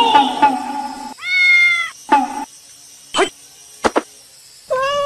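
Plucked, rhythmic music ends about a second in. Then a domestic cat meows: one long meow, a short one, and another long meow near the end. Two sharp clicks fall between the meows.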